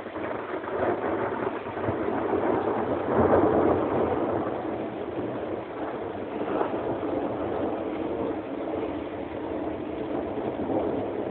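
Thunder: a sudden clap, then a long, low rolling rumble that swells to its loudest about three seconds in and rolls on, a little weaker, for several more seconds.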